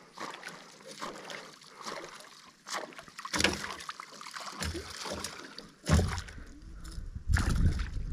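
A fish held at the surface beside an aluminium boat thrashes, throwing up splashes of water, with irregular knocks and several heavy thumps; the loudest come about six seconds in and again shortly before the end.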